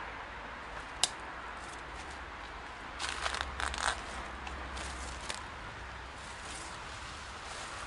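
Footsteps crunching and rustling through dry leaves, ivy and twigs, with one sharp snap about a second in and a burst of crackling around the middle.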